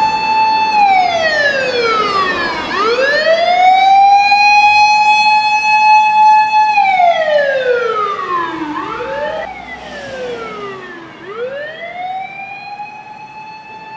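Fire rescue truck's siren wailing: a quick rise to a held high note, a few seconds steady, then a long slide down, twice over, with a second siren sweep briefly crossing it about nine seconds in. It grows fainter over the second half as the truck moves away.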